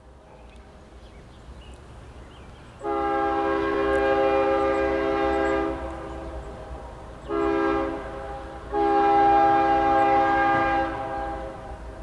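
Multi-chime air horn of an approaching BNSF ES44DC diesel locomotive sounding a chord in a long blast, a short one and another long one, the end of the grade-crossing horn pattern, over the low rumble of the oncoming freight train.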